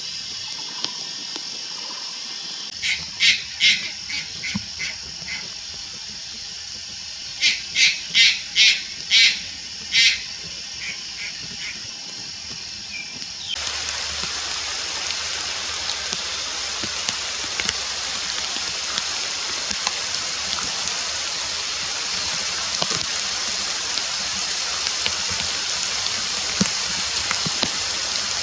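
Juvenile Malayan night heron giving short, sharp calls in two series, several a second, each opening loud and tailing off into weaker calls. About halfway through, a steady rushing of water comes in and lasts to the end.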